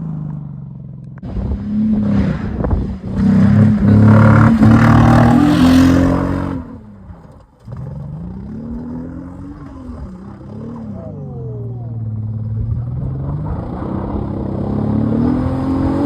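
Holden VY Commodore's Ecotec V6 revving hard through a burnout, with a loud rushing, clattering noise of wheelspin over it for about five seconds. The engine then drops away sharply and is revved up and down several more times.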